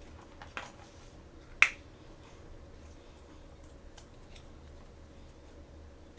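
Small Shopkins toys and their packaging being handled: one sharp click about a second and a half in, a softer click before it, and faint rustling.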